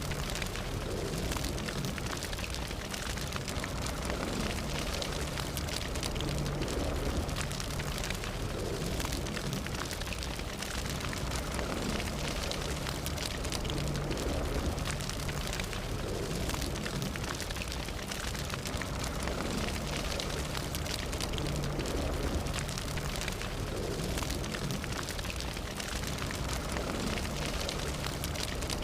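Fire burning with a steady low rush and dense, constant crackling and popping throughout.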